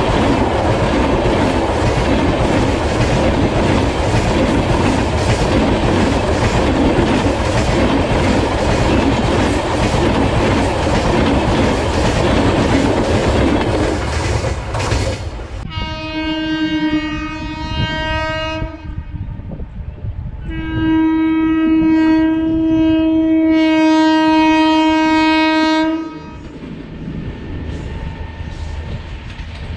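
Train of LHB high-capacity parcel vans passing close by, wheels rumbling and clattering over the rail joints, stopping abruptly about halfway through. Then an electric locomotive's horn sounds two long blasts, the second longer and louder, followed by the low rumble of a train approaching.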